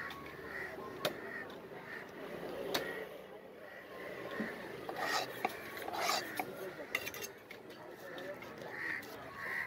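A heavy knife scraping and cutting through a large red fish behind the head, rasping against scales and bone on a wooden chopping block, with several sharp knocks of the blade.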